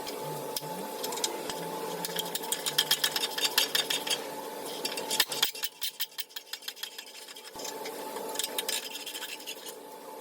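Ratchet wrench clicking in quick runs, three times, over a steady hum, as a corroded exhaust flange bolt is worked on; the bolt is rusted badly enough that it looks ready to snap.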